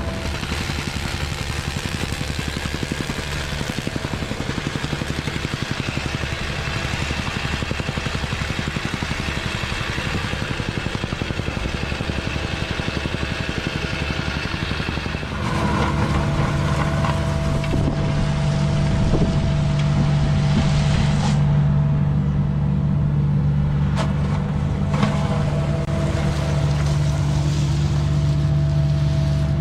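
Diesel engine of heavy earthmoving equipment running steadily; about halfway through it gets suddenly louder with a stronger deep hum, as under more load or higher revs.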